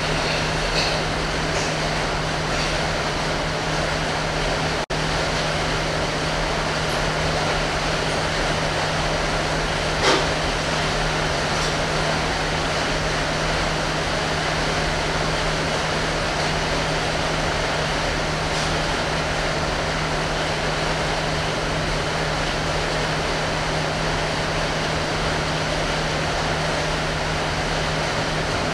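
Steady machine-like noise with a constant low hum, unbroken except for a brief dropout about five seconds in and a small click about ten seconds in.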